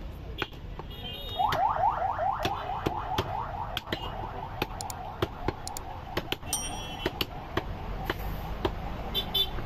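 Heavy cleavers chopping goat meat and bone on a wooden chopping block, sharp irregular chops about two a second. Behind them an electronic alarm sounds: quick rising whoops about five a second, then a steady tone that fades away.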